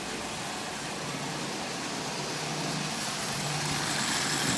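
Vintage Marx electric toy train running around tinplate track at half power: a steady motor hum with wheels rattling on the rails, slowly getting louder toward the end.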